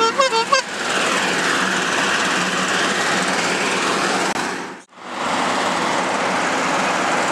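Hot-air balloon propane burner firing overhead with a loud, steady rushing noise as the balloon lifts off, cut by a brief sudden gap about five seconds in.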